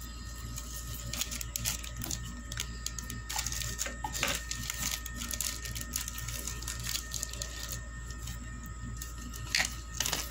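Small clear plastic zip bags crinkling and rustling as they are handled and opened, with light clicks of buttons and small sewing notions inside, and a few sharper crackles near the end.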